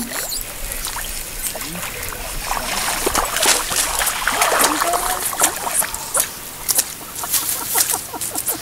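Water trickling and splashing, with many short, sharp splashes scattered throughout.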